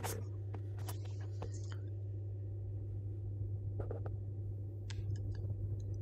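A steady low hum with a few faint, short clicks and taps of handling among the boiler pipework.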